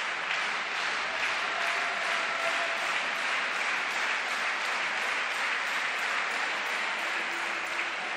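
Spectators applauding steadily after a point in a table-tennis match.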